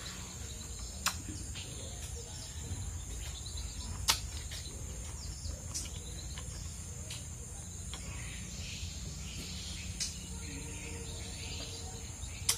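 Steady high-pitched drone of insects, with about six sharp clinks of a utensil against a steel plate, the loudest about four seconds in.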